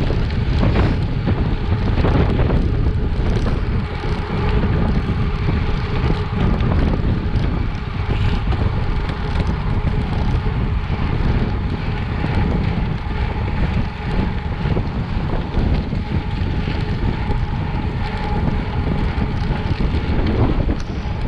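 Wind buffeting the microphone of a camera on a gravel bike moving at race pace, over the steady rolling noise of bike tyres on a gravel road.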